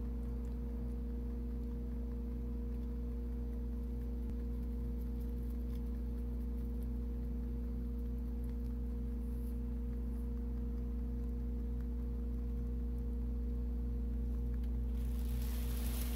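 Steady low electrical hum with a few fixed tones, with a brief rustle near the end.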